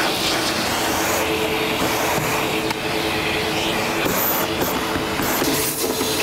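Vacuum cleaner running steadily with a rush of air and a constant hum, sucking up metal drill shavings from inside a soda machine door.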